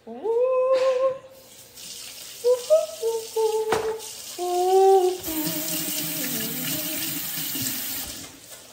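A woman singing a few drawn-out, gliding notes. About five seconds in, a steady hiss of running tap water joins under a lower wavering note and lasts about three seconds.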